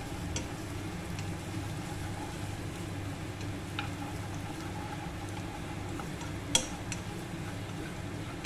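Chopped garlic and ginger slivers sizzling gently in oil in a small nonstick saucepan while being stirred with wooden chopsticks, being fried briefly to release their aroma. Scattered light clicks of the chopsticks against the pan, the sharpest about six and a half seconds in.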